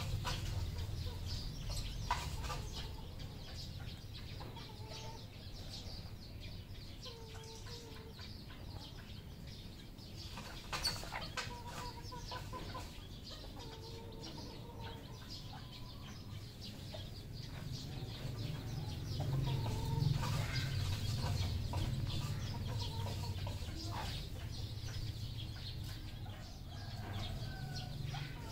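Red junglefowl clucking, with short calls scattered through, over a steady low rumble.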